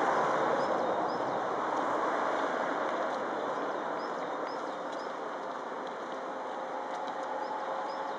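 Steady distant rushing of the LNER A4 steam locomotive and its train working across the bridge, loudest at the start and easing slightly. Small birds chirp faintly a few times.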